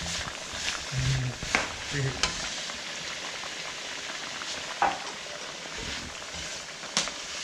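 Japchae noodles, beef and vegetables sizzling in a wok as they are stir-fried, with a steady hiss and a few sharp clicks of the utensil against the pan.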